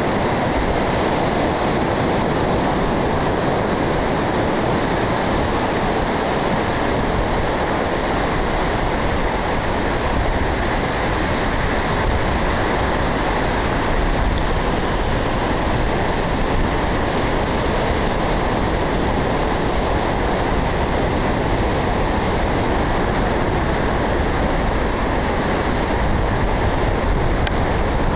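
Ocean surf washing steadily on the beach with wind on the microphone, a continuous even rushing noise that is heavy in the low end.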